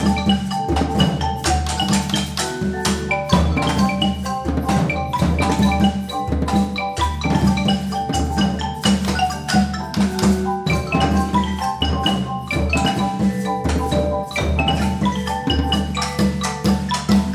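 Percussion ensemble playing: rapid mallet notes on marimbas over a steady drum beat.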